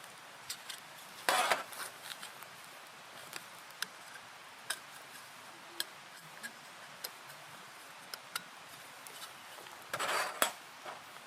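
Light clicks and clinks of camp cookware and utensils being handled, scattered at irregular intervals, with two short scraping sounds about a second in and near the end.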